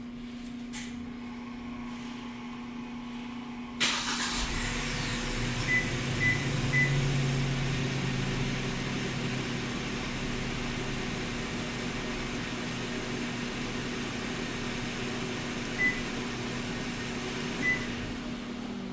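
A small cargo truck's engine starts up suddenly about four seconds in and then idles steadily, with short high beeps: three in quick succession soon after the start and two more near the end.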